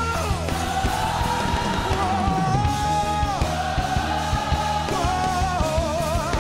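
Live church band music, dense and steady underneath, with singing in long, wavering held notes that glide up and down over it.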